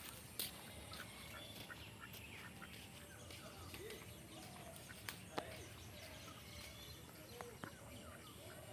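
Faint, scattered bird calls, short and spaced out, over low steady background noise, with a few sharp clicks.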